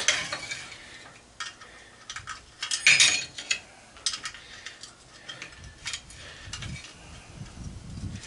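Metal hand tools clinking and scraping against metal in irregular clicks, a cluster of louder clanks about three seconds in, as a wrench and screwdriver are worked at a stuck, broken-off nut that will not come loose.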